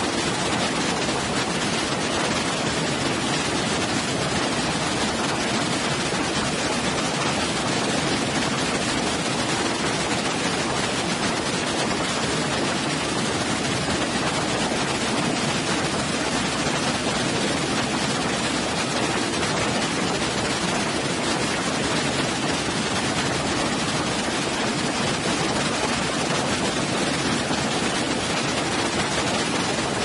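Waterfall and small cascades rushing over rocks: a steady, unbroken hiss of falling water.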